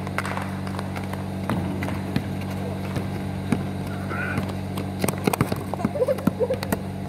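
Basketball bouncing and players' feet on a concrete court: scattered sharp knocks, then a quick run of them about five seconds in, over a steady low hum.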